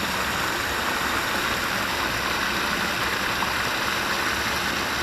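Canal water running and rushing steadily.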